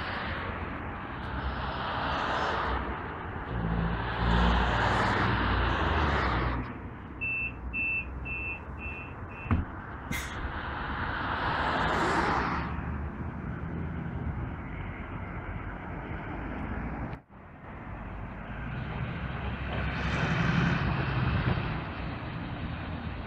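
Articulated city bus at a stop with its engine running: five short high beeps as the doors close, then a sharp knock as they shut and a swell of noise as the bus pulls away. Later, road traffic with an articulated bus driving past.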